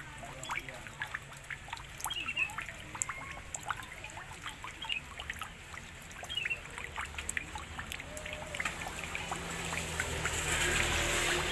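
Water trickling and dripping, with a few short high chirps scattered through. The splashing grows fuller and louder near the end.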